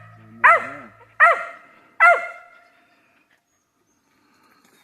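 Mountain feist barking three times in short, sharp barks about three-quarters of a second apart, the bark of a squirrel dog treeing.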